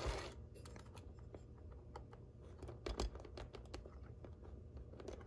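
Faint, irregular small clicks and rattles of a 1939 brass Varney HO-scale steam locomotive being nudged by hand along model railway track, wheels and loose frame ticking on the rails. There is no motor sound: the engine is getting no power from the track.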